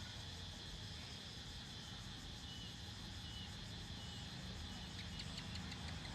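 Rural outdoor ambience: a steady insect drone under the low rumble of distant vehicle traffic, with a quick series of chirps about five seconds in.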